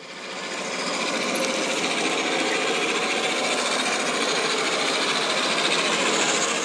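Ride-on miniature train rolling along its rails: a steady, rapid clatter and rumble of wheels on track that swells in over the first second and drops away at the end.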